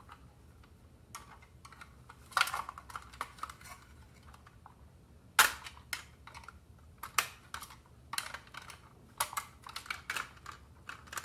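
A thin metal tool scraping and clicking against the tin-plate body of a toy robot while prying at a bent locking tab. The clicks and short scrapes come irregularly, the sharpest about two and a half and five and a half seconds in.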